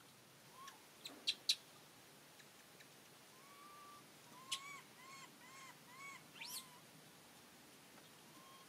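High whistled animal calls: one long note, then a run of five short arched notes about a third of a second apart, ending in a quick rising squeak. Three sharp clicks come about a second in and are the loudest sounds.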